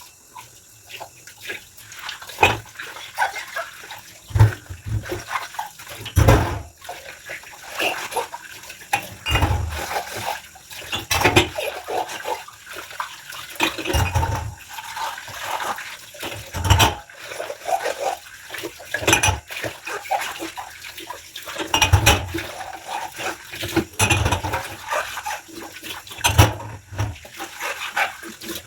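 Wet rubber dishwashing gloves squeaking against dishes, over splashing water, with dishes knocking and thudding every second or two.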